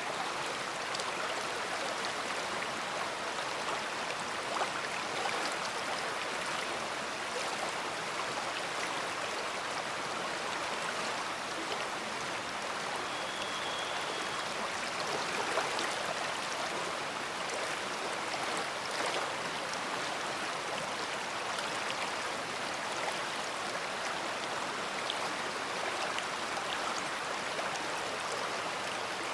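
Large river flowing: a steady, even rush of moving water.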